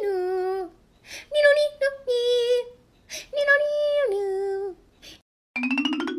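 A high singing voice holding long, slightly wavering notes in three short phrases with brief gaps between them. Near the end comes a short rising electronic tone.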